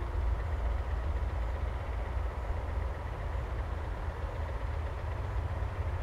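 Low, uneven outdoor rumble just after a loudspeaker chime has ended, with a faint tone from the chime lingering and fading over the first few seconds.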